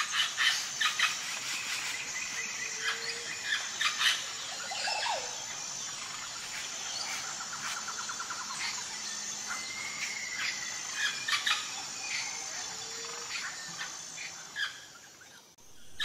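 Wild birds chirping and calling, with a trill near the middle and a short whistled note a little later, over a steady high insect hum.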